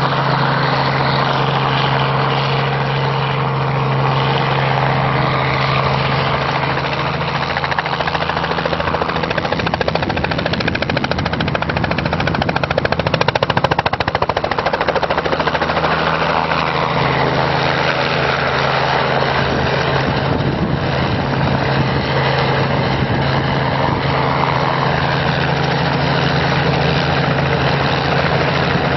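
Helicopter engine and rotor running steadily close by, a strong hum with the rhythmic chop of the blades, swelling briefly about halfway through as it manoeuvres.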